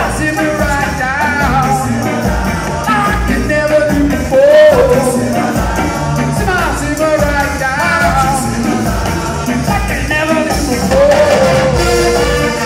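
A ska band playing live: electric guitar, a horn section of saxophones, trumpets and trombones, and voices singing into the microphones over a steady beat.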